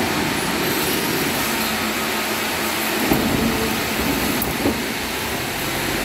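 Sawmill breakdown machine and its chain-driven log conveyor running with a steady mechanical noise as a log is carried along, with a few light knocks about three and four and a half seconds in.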